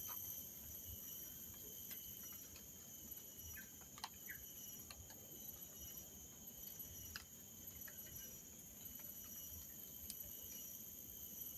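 Faint, steady chorus of forest insects trilling at several high pitches at once, with a few scattered faint clicks and short chirps.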